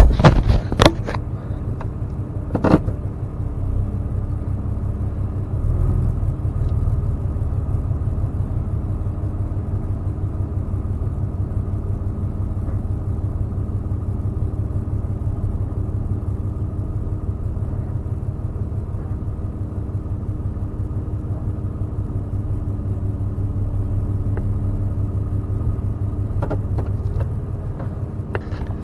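Pickup truck engine running steadily at low speed, heard from inside the cab as a low, even rumble. A few sharp clicks and knocks in the first three seconds come from the camera being handled and set in place.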